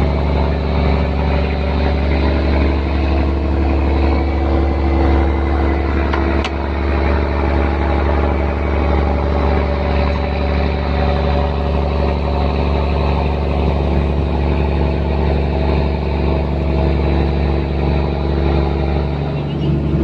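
Fishing boat's engine running steadily at an even speed, with one sharp click about six seconds in.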